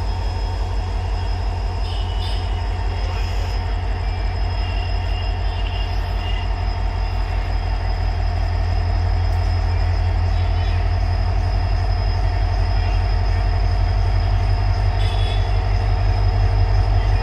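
Diesel locomotive engine running with a deep, rhythmic chugging, growing gradually louder over the second half.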